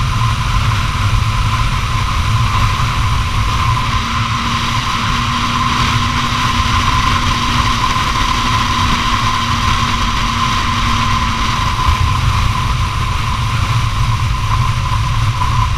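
Honda CBR250R's single-cylinder engine running at a steady highway cruise, with heavy wind rumble on the microphone and a steady high tone.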